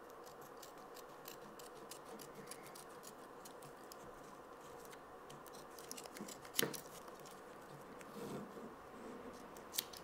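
Small spring-loaded scissors of a Victorinox Swiss Army knife snipping through adhesive tape: a run of faint light clicks, with louder snips about six and a half seconds in and just before the end.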